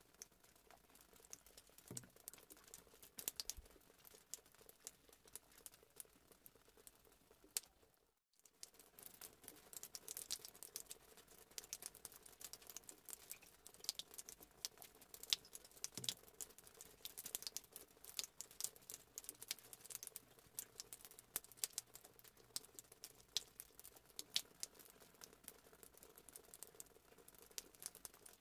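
Faint handling noise of baking prep: crinkling of a plastic milk-powder sachet as powder is poured into flour, then soft scraping and small clicks of a spatula folding batter in a bowl.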